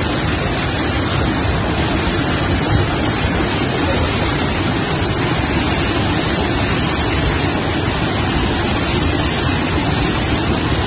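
A torrent of muddy floodwater rushing in a flooded channel: a loud, steady rush of water.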